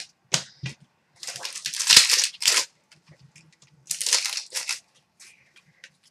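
Wrapper of a hockey card pack crinkling as it is torn open and handled, in two loud rustling bursts: one about a second in, the other about four seconds in.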